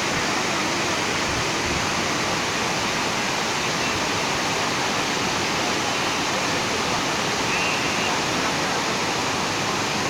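A heavy waterfall in full flow and the white-water rapids below it: a loud, steady rush of falling and churning water.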